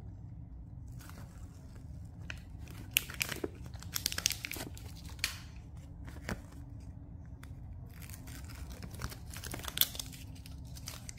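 Paper rustling and crinkling as a tape-covered paper cut-out is handled and bent, with scattered short crackles and a couple of brief tearing sounds.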